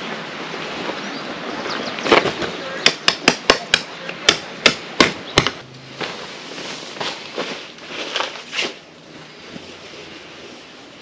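A run of about ten sharp knocks, some three a second, starting about two seconds in and stopping a little past halfway, with lighter rustling and handling noise around them.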